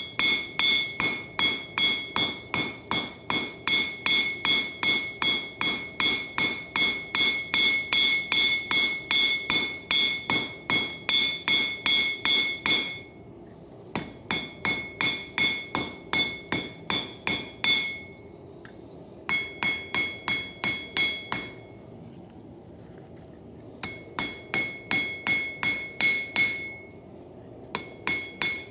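Blacksmith's hand hammer striking hot coil-spring steel on the anvil's horn, about three blows a second, each with a bright ringing tone, while he draws out and shapes the knife's handle. There is a long run of blows, then shorter runs broken by pauses of a second or two.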